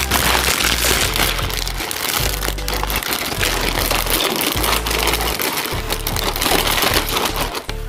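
Clear plastic outer wrapping of a multipack of roasted seaweed being torn open and crinkled by hand close to the microphone, a continuous crackling crinkle, over background music.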